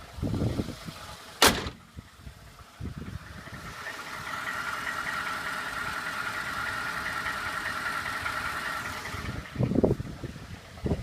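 2012 Ford F-150's 5.0 V8 engine running, the engine its owner is recording for a knock. There is a single sharp clack about one and a half seconds in, and a steady, louder hum with a high tone from about four to nine seconds in.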